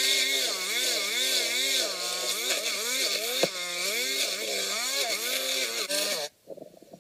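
Small two-stroke engine of a string trimmer running at high revs, its pitch repeatedly rising and dipping as the line cuts into the grass. It cuts off suddenly about six seconds in.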